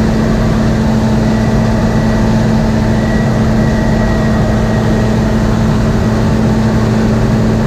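Turbocharged John Deere 7720 combine harvester running steadily at harvest: a loud, unbroken drone of diesel engine and machinery with a strong low hum.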